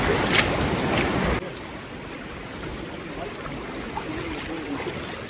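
Rushing floodwater of an overflowing creek, a loud steady rush that drops suddenly to a softer rush about a second and a half in.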